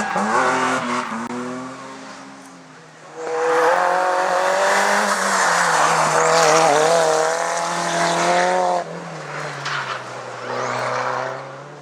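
A racing car's engine at high revs, fading away over the first few seconds. About three seconds in, a loud run of high revs starts, wavers in pitch in the middle, and cuts off abruptly near nine seconds, leaving quieter engine sound.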